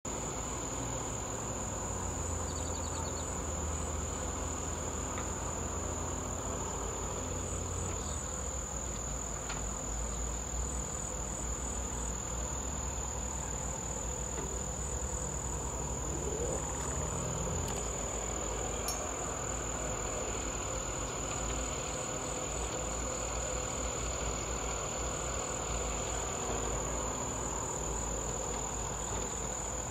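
Insects trilling in one unbroken, high-pitched tone, with a low rumble underneath.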